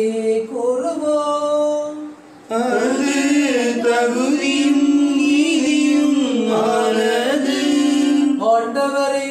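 A hymn sung during mass, in long held notes, with a short break about two seconds in.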